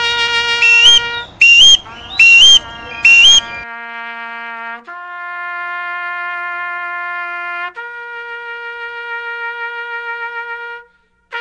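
Music: a trumpet, with three short, very loud blasts in the first few seconds, then a slow line of long held notes.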